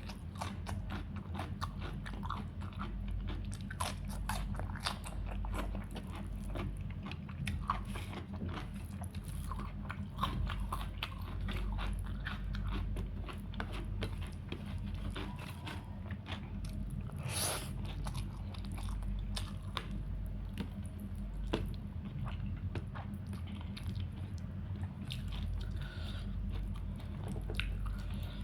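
A person chewing and biting a meal of chicken curry, rice and salad close to the microphone, with many small wet clicks and occasional crunches, one louder crunch about seventeen seconds in. A steady low hum runs underneath.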